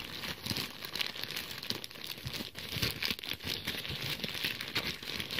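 Grey plastic postal mailer crinkling and rustling as it is handled and pulled open by hand, a dense run of small crackles.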